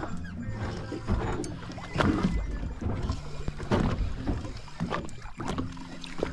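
Water slapping against the hull of a boat at anchor, in irregular surges and knocks, over a steady low hum.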